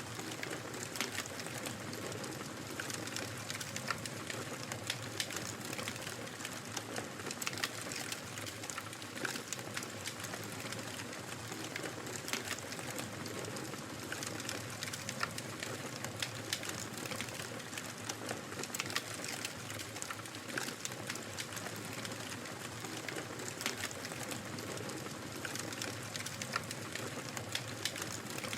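Wood fire crackling: a steady soft hiss with frequent irregular pops and snaps.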